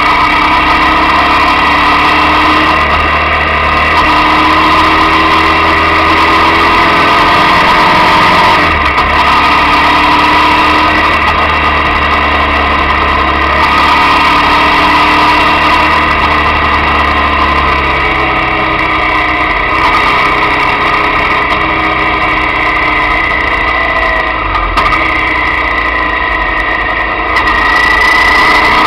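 Motorcycle engine running under way, heard through a camera mounted on the bike, its pitch rising and falling repeatedly as the rider works the throttle through the bends.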